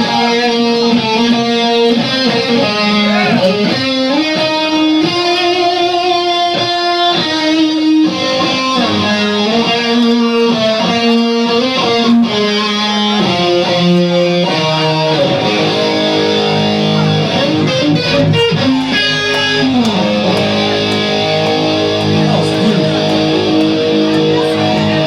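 Live band music led by an electric guitar playing a melody of long held notes with sliding, bent pitches.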